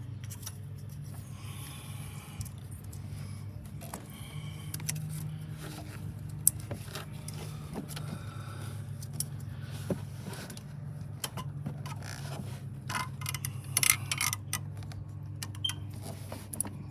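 Scattered clicks and light rattles of hands and a wiring harness in an engine bay as the oxygen sensor's electrical connector is plugged in, over a steady low hum.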